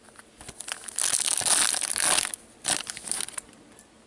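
A hockey card pack's wrapper being torn open and crumpled by hand: a loud crinkling stretch begins about a second in and lasts just over a second, then a shorter crinkle follows.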